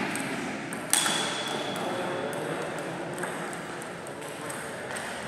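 Table tennis ball sounds between points: a sharp click about a second in that rings on in one high tone for over a second, then a few light ticks, over a steady hall hum.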